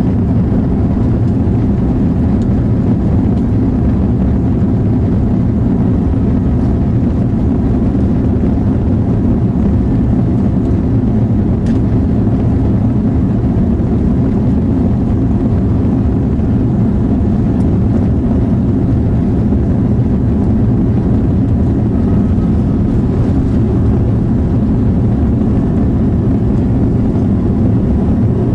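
Steady low rumble inside the cabin of an Airbus A340-300 taxiing, its four CFM56 engines at low taxi power.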